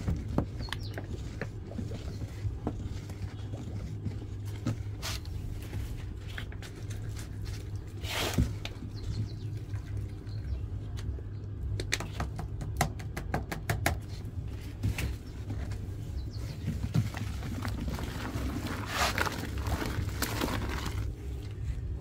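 Wooden stick stirring and sloshing thick, foamy liquid detergent in a plastic basin, with irregular splashes, clicks and dripping patter over a steady low rumble.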